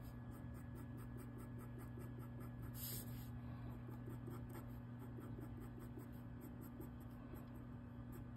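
Felt-tip marker scratching quick, short hatching strokes on a sheet of paper, over a steady low hum. About three seconds in there is a brief swish as the paper is slid round on the table.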